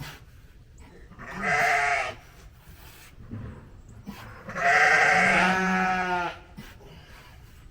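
A sheep bleating twice: a short call about a second in, then a longer, louder one about four and a half seconds in.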